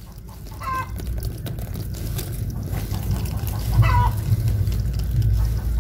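A chicken calling twice, with two short clucks about a second in and again around four seconds in, over a steady low rumble.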